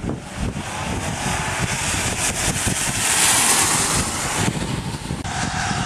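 Wind buffeting the microphone, while a car passes on the rain-soaked road, its tyres hissing through the water, loudest about three seconds in.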